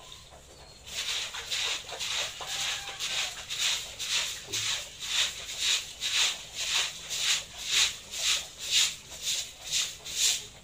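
Rhythmic brushing strokes, about two a second, starting about a second in and keeping an even pace.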